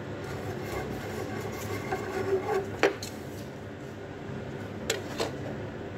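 Hands working inside a wooden display cabinet: light rubbing and small knocks, with one sharp click about three seconds in and two more near the end, over a steady low hum.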